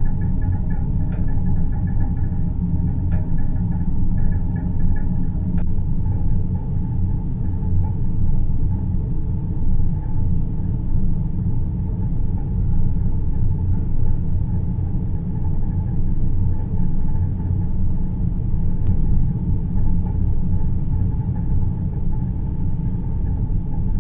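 Deep-space sleep ambience: a steady, deep rumble like brown noise, with a faint higher hum over the first few seconds and a few soft clicks.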